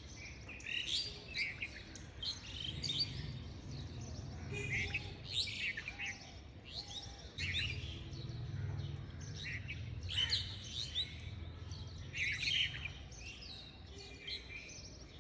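Small songbirds chirping and twittering again and again, with short high trills. A faint low hum comes and goes beneath them.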